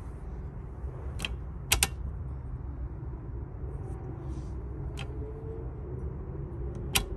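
Plastic flap of a pet door clicking and tapping against its frame a few times, a sharp double click about two seconds in the loudest and another click near the end as the flap drops back, over a steady low hum.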